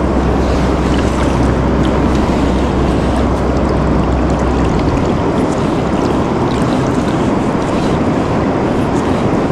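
Steady rushing of a fast-flowing river's current around a wading angler, with wind noise on the microphone. A low rumble underneath drops away about five seconds in.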